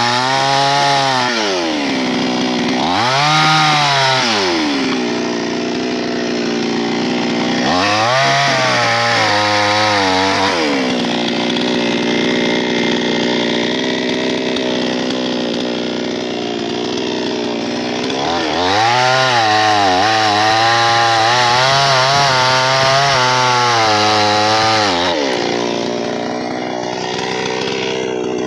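Chainsaw engine revving up and dropping back several times. It holds at high throttle with a wavering pitch, as when the chain is cutting through wood, the longest run lasting about six seconds in the second half.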